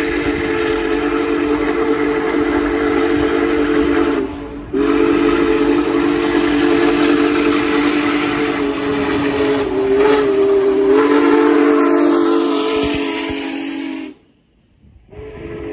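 Union Pacific 4014 Big Boy steam locomotive's whistle blown in two long blasts, sounding several tones at once: a short break about four seconds in, then a second blast held for about nine seconds, its pitch wavering briefly partway through. Steam hiss is heard with it.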